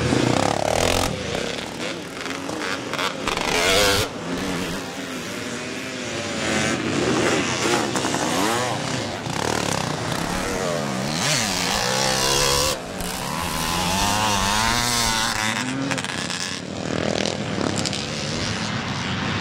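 Several vintage motocross motorcycles racing past, their engines revving up and down and overlapping as they go by one after another.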